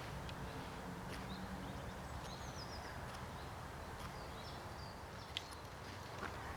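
Faint outdoor ambience: a steady low wind rumble with scattered short, high bird chirps, including a quick run of falling notes, and one small sharp click about five seconds in.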